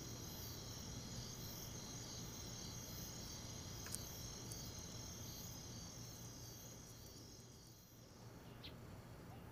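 Faint crickets chirping steadily in a dense, high trill over a low steady hum, easing off near the end.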